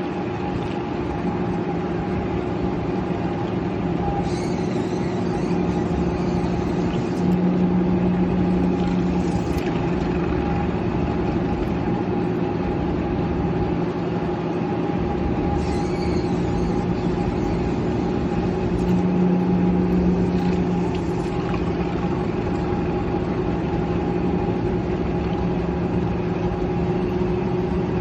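Steady hum of running machinery, with a few brief hissing sounds now and then and two short stretches where the hum grows a little louder.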